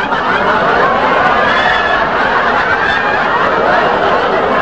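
Studio audience laughing loudly, many voices at once, the laughter held throughout.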